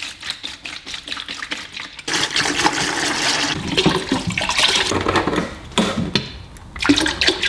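Coolant being poured from a 5-litre container into a bucket: a few light knocks first, then a loud, steady splashing stream of liquid from about two seconds in that eases off near the end.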